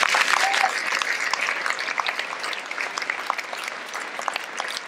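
Audience applauding, many hands clapping at once, slowly dying down.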